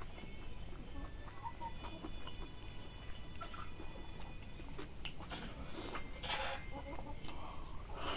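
Domestic chickens clucking, with a few short noisy mouth sounds of someone chewing food in the second half.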